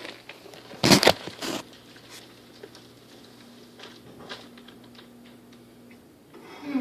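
Amana air-conditioner condenser unit running with a steady low hum, broken about a second in by a loud half-second burst of rattling clatter, the unusual noise it keeps making, followed by scattered light ticks and a shorter swell of noise near the end.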